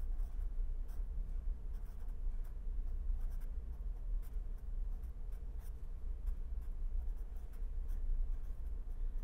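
Pen writing on paper: a run of short, faint scratching strokes over a steady low hum.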